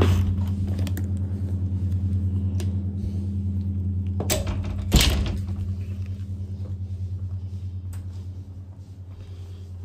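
A steady low electrical hum from a running appliance, fading as the recorder moves away from it. About four seconds in there is a sharp knock, and a louder one follows about a second later.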